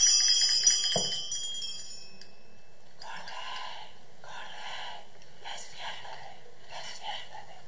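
Small brass hand bell shaken, jingling rapidly and fading out about two seconds in.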